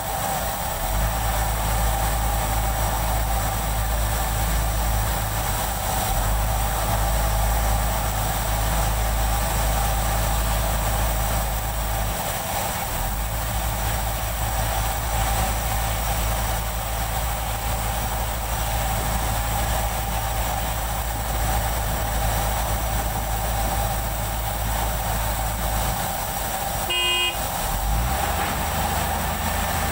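Truck-mounted concrete pump's heavy diesel engine running steadily with a low, even hum. A short beep sounds about 27 seconds in.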